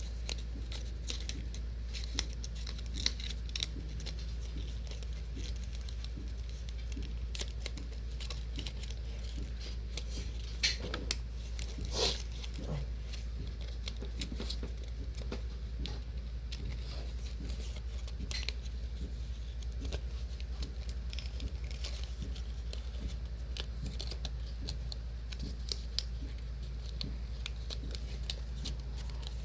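Paper and sticky tape being handled while a paper airplane is built: scattered small clicks, rustles and crinkles, with a couple of louder taps about eleven and twelve seconds in, over a steady low hum.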